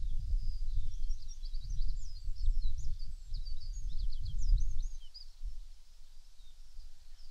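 Birds singing in a dawn chorus: a dense run of quick, high twittering notes that thins out after about five seconds. Underneath, and louder, is a gusty low rumble of wind on the microphones, which dies down at about the same time.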